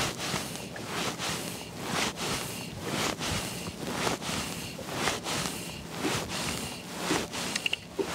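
Wind and choppy water around a small boat on open water, with irregular swells of noise roughly every half second to a second as wavelets slap the hull and gusts hit.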